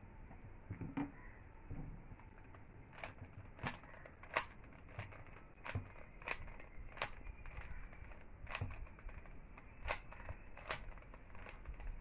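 Plastic 3x3 Rubik's cube being twisted by hand, its layers snapping round in sharp, irregular clicks about one or two a second.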